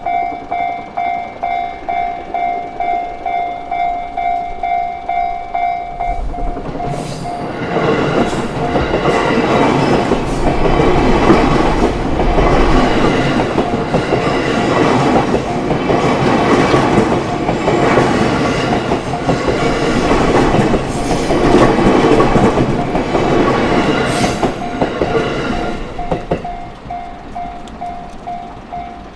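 Japanese level-crossing warning bell ringing in quick repeated dings, about two a second. About six seconds in, a train passes over the crossing, its wheels clacking over the rail joints and drowning out the bell for about twenty seconds. Near the end the bell is heard again.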